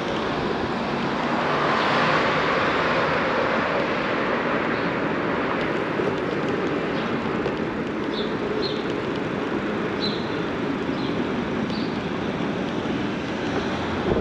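Steady rush of wind on the microphone with rolling tyre noise from riding a bicycle, with a few short high chirps a little past halfway.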